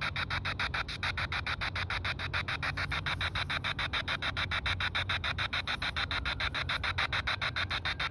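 Handheld spirit box radio sweeping through the FM band: a fast, even chatter of short static bursts, about nine a second, over a low hum.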